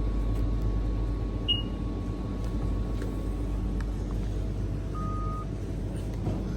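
Steady low rumble of a train running, with two short electronic beeps: a high one about one and a half seconds in and a lower one about five seconds in.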